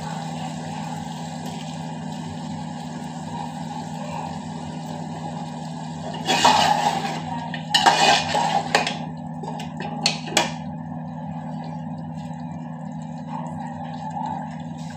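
Handling at a cooking pot on a gas stove: scraping and clattering in two bursts about six and eight seconds in, then two sharp clicks, over a steady low hum.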